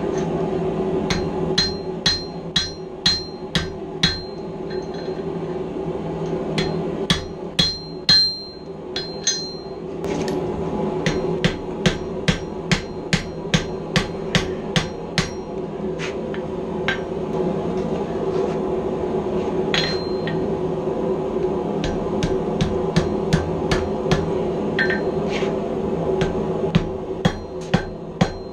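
Hand hammer blows on red-hot steel over an anvil while forging a railroad screw, coming in runs of about two strikes a second with a bright ring on each blow and a few seconds of fewer strikes in the middle. A steady low hum runs underneath.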